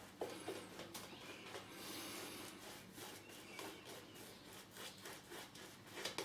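Maseto 24mm finest badger shaving brush working lather onto a stubbly face: a faint wet swishing of the lather with many small irregular clicks.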